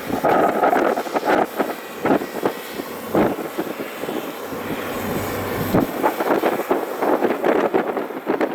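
Doosan DX300 excavator at work: its diesel engine running under many short, irregular knocks and rattles.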